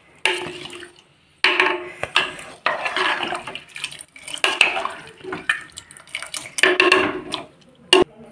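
Plastic spoon stirring rice, vegetables and water in a pressure cooker: a series of sharp knocks and scrapes against the pot, about half a dozen, with water sloshing between them.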